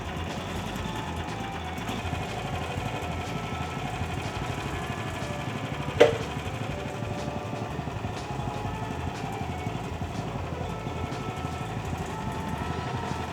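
Sawmill engine running steadily while the saw cuts a hemlock log into a first cant. There is one sharp click about six seconds in.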